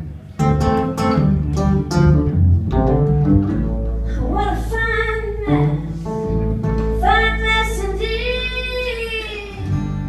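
A live band of upright bass and guitar, with a woman singing. For the first few seconds there are short picked notes; then she holds long sung notes over a sustained low bass note until just before the end.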